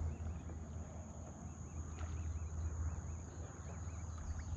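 Faint outdoor ambience on open water: a low steady rumble with a thin high steady whine. A run of faint, wavering, bird-like chirps sounds through the first half.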